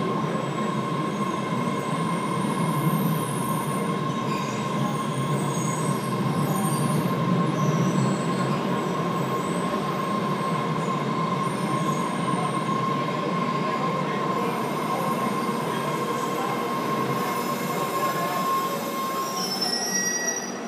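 MBTA Red Line subway train pulling into the station and standing at the platform: a steady rumble under a steady high whine that fades out near the end, followed by a brief higher squeal.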